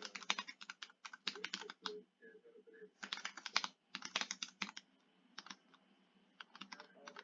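Typing on a custom mechanical keyboard with Cherry MX Red linear switches: quick runs of keystrokes in about half a dozen bursts, with short pauses between them.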